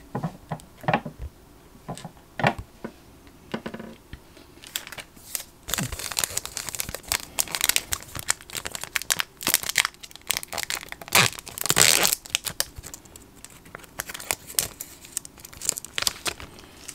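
Topps Chrome baseball card pack wrapper being torn open by hand, crinkling and tearing. It starts about four seconds in, after a few light clicks of handling, and is loudest near the middle.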